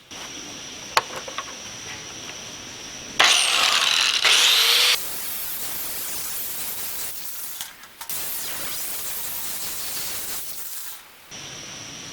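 Angle grinder taking mill scale off a rough-sawn steel plate: a loud grind with a rising whine about three seconds in, then a steadier, quieter grind that breaks off near the end.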